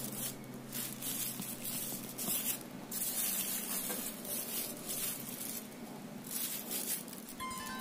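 Plastic wrap crinkling and rustling in a series of short irregular bursts as hands move slices of soft rice cake lying on it.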